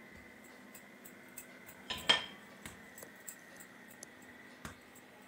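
Dough being pressed and rolled with a wooden rolling pin on a granite counter: scattered faint clicks and light knocks, with one brief clinking clatter about two seconds in from the rolling pin and the cook's metal bangles.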